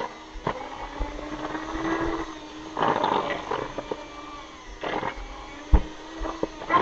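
Electric hand mixer running steadily as it beats cookie dough in a plastic bowl, its hum wavering slightly in pitch under the load, with several short knocks over it, the loudest near the end.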